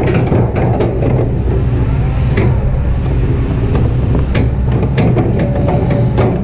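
Kobelco SK200-8 excavator's diesel engine running steadily under working load, with scattered clanks and knocks from the digging gear.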